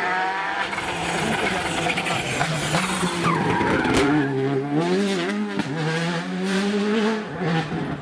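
Škoda Fabia Rally2 rally car's turbocharged four-cylinder engine, its pitch rising and falling in steps with gear changes as it brakes and accelerates through a hairpin on tarmac. A short tyre squeal comes about three seconds in.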